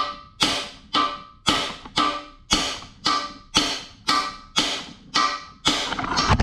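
A small sledgehammer striking a metal bearing driver about twice a second, driving a balance-shaft bearing into its bore in a 4G63 engine block. Each blow is a sharp metallic clink with a brief ring, and near the end the blows run into a denser clatter.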